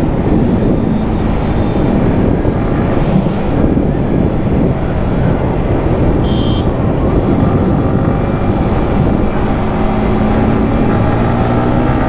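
Yamaha R15 V4's single-cylinder engine running hard at road speed under heavy wind rush, its note climbing as it accelerates near the end. A brief high beep sounds about six seconds in.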